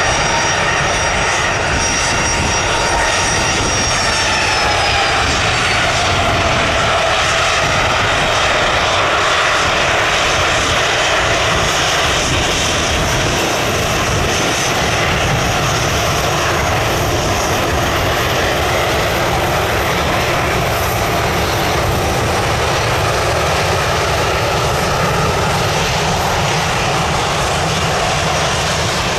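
Jet airliner taking off: a loud, steady engine roar with whining tones that drop in pitch about four to seven seconds in as it passes.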